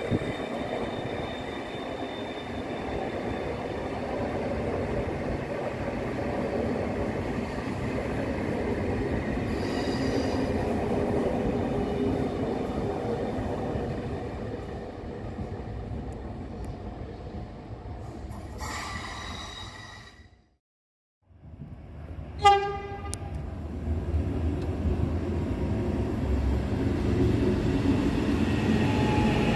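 Train running past with a steady rumble, which stops abruptly. Then comes one short, loud train-horn blast, followed by a rumble that grows louder as a train approaches.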